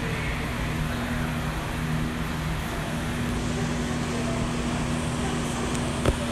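Steady hum and rushing noise of a ventilation fan, with a single sharp knock near the end.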